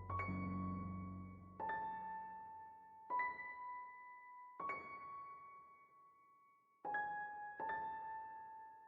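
Background music: slow, single electric-piano notes struck about every second and a half, each ringing and fading, over a low backing that fades out in the first few seconds.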